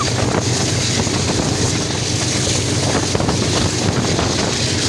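Diesel locomotive working a freight train up a gradient, heard from its cab window: a steady low engine rumble under heavy wind buffeting on the microphone.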